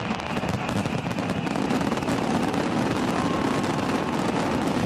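Aerial firework shells going off in a continuous barrage, dense bangs and crackling running together without a break.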